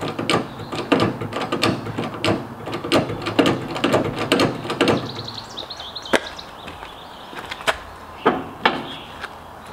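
Irregular clicks and knocks of hands handling parts on a parked semi truck, coming quickly for the first five seconds or so, then only a few scattered knocks.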